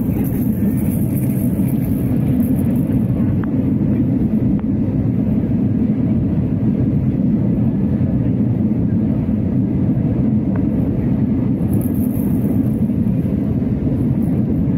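Steady low rumble of an Airbus A320's jet engines and airflow, heard from inside the passenger cabin during descent.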